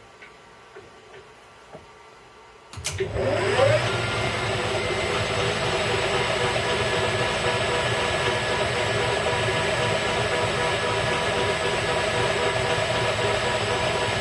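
A few light clicks, then about three seconds in a metal lathe's motor switches on, rising in pitch as the spindle spins up, and runs on steadily with a hum and whine.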